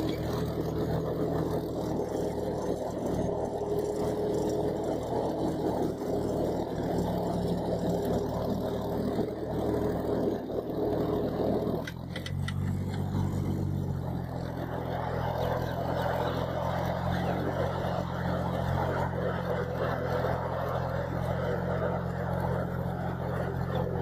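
Fiat 480 tractor's three-cylinder diesel engine running steadily under load while ploughing. About twelve seconds in the note dips briefly with a few clicks, then settles into a steady, slightly different pitch.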